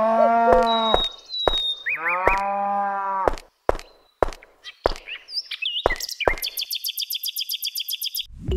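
Cow mooing: two long, low calls. The first ends about a second in and the second runs from about two to three seconds in. Sharp clicks sound about every half second throughout, and near the end comes a rapid run of high chirps, about ten a second.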